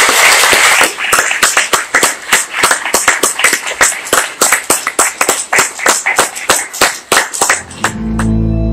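Audience applauding, dense at first and thinning to scattered separate claps. Sustained keyboard-like music chords come in near the end.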